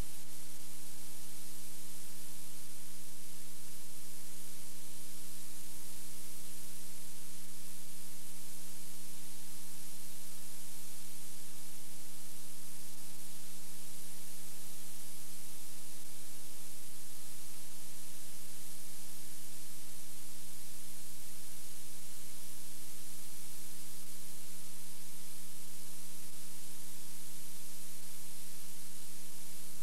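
Steady electrical hum, several steady tones stacked together, under a loud, even hiss. Nothing else is heard.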